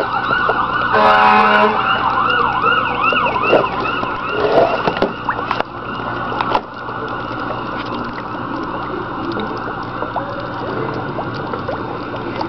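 A yelping siren, its pitch rising and falling about three times a second, that stops a few seconds in and gives way to a steady noise.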